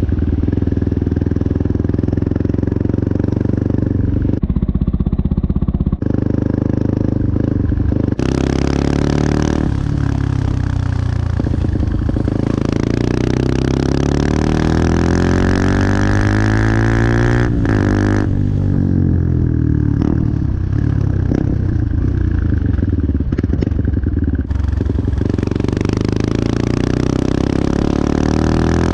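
Benelli TNT 125's single-cylinder four-stroke engine running, steady for the first several seconds and then revved, its pitch rising and falling repeatedly through the middle stretch.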